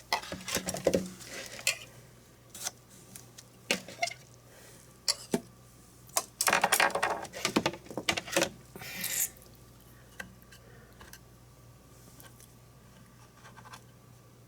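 Kitchen handling noise: a run of irregular clicks, taps and short clatters of dishes and utensils, busiest over the first nine seconds, then only a few scattered taps.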